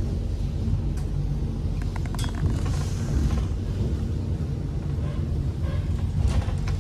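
Steady low rumble of a running Vande Bharat express train, heard from inside the coach, with a few faint clicks and rattles.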